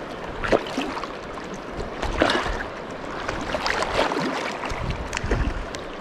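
River water rushing steadily, with several irregular splashes in the water.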